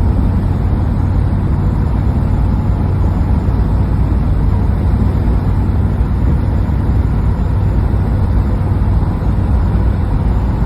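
Steady road noise of a vehicle driving at highway speed: a constant low rumble with an even hiss above it.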